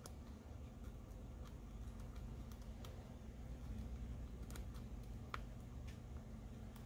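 Faint scraping and light clicks of a thin metal pick worked along the edge of a Google Pixel phone's frame, cleaning off old adhesive, with one sharper tick about five seconds in.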